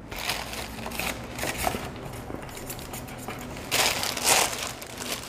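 Clear plastic wrapping crinkling and crackling as the wrapped air rifle is handled in its cardboard box, louder for a moment about four seconds in.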